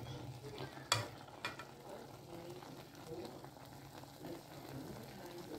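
Faint sizzling of small dried fish and tomato pieces cooking in an aluminium saucepan as they are stirred with a wooden spoon. The spoon knocks sharply against the pan twice about a second in. A low steady hum runs underneath.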